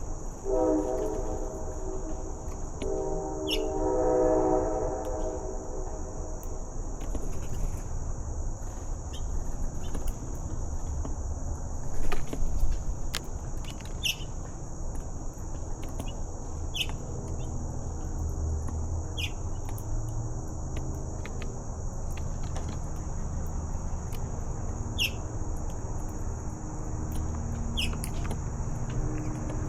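Outdoor ambience: a steady high insect drone, with short high falling bird chirps every two to three seconds, over a low rumble. A deeper pitched sound made of several tones, like a distant horn, sounds in the first few seconds and fades out.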